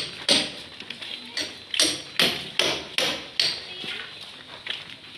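A run of sharp, bright knocks, about two or three a second, stopping about three and a half seconds in.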